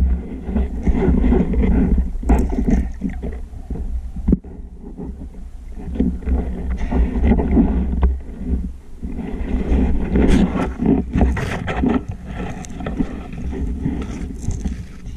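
Water noise heard underwater by the diver's camera: a steady low rumble with surging, swelling water noise as the diver moves, and scattered sharp clicks and knocks.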